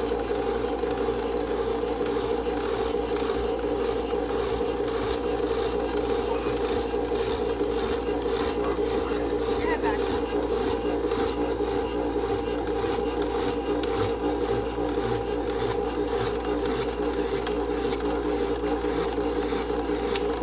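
Electric spiralizer motor running steadily as its blade shaves a sweet potato into ribbons, with a rhythmic rasping about twice a second.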